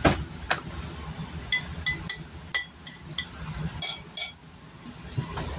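Kitchenware clinking: about six short, sharp clinks, each with a brief high ring, two of them close together past the middle.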